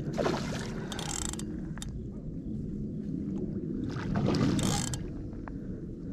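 A hooked carp splashing at the surface as it fights near the bank, in a few short bursts, over a steady low rumble of wind on the microphone.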